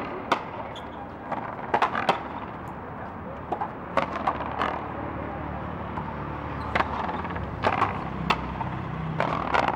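Raqueta frontón rally: the ball smacks off the rackets and the front wall in sharp, irregular cracks, sometimes two in quick succession.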